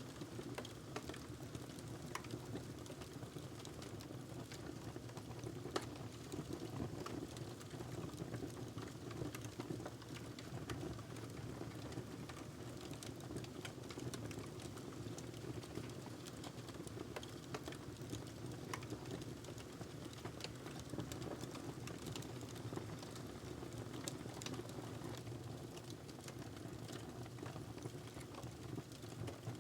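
Wood fire crackling in a fireplace: irregular sharp pops and snaps over a steady low rumble of burning logs.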